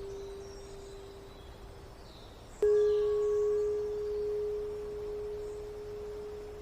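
A Tibetan singing bowl ringing out and fading, then struck again about two and a half seconds in, giving a sharp attack and a new, slightly higher pure tone with faint overtones that slowly decays. Faint bird chirps sound in the background.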